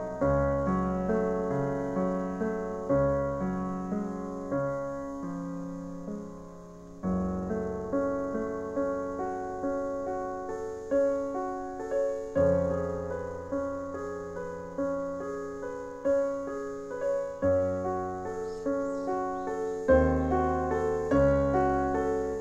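Solo piano music: struck chords and melody notes over bass notes, each dying away, with a short lull about six seconds in.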